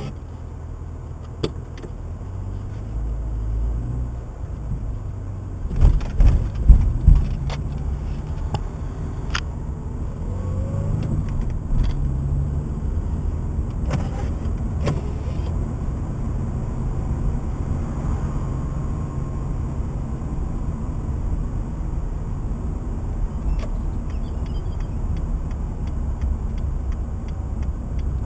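Subaru Impreza 1.6's flat-four engine and road noise heard from inside the cabin as the car pulls away and drives on, a steady low rumble. A few loud thumps come about six to seven seconds in.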